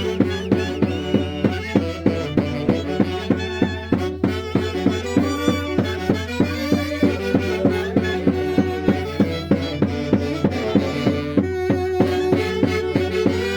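Santiago dance music from Peru's Mantaro Valley: a band playing a melody over a steady, evenly pulsing percussion beat.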